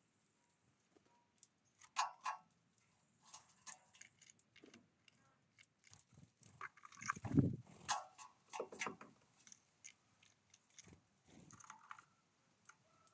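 Irregular taps, clicks and crunches of birds pecking and cracking seeds at a feeder, with a louder low thump about seven seconds in.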